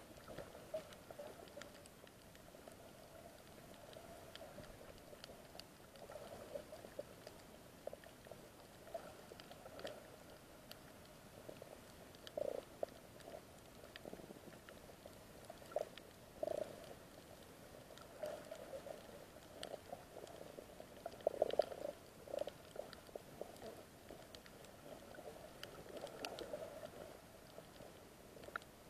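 Faint, muffled underwater burbling picked up by a camera held underwater: irregular low surges of water movement, a few of them louder, with faint scattered clicks.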